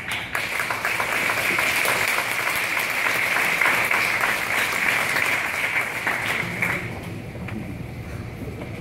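Audience applauding: a dense patter of many hands clapping that dies away about seven seconds in.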